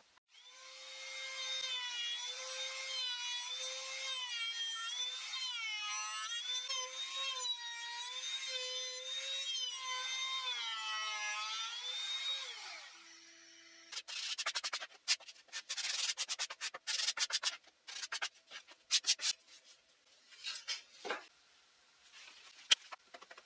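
Trim router spinning a 45° chamfer bit at high speed, a high whine that dips in pitch again and again as the bit bites into a wood block. The whine winds down about 13 seconds in. A string of sharp clicks and knocks follows.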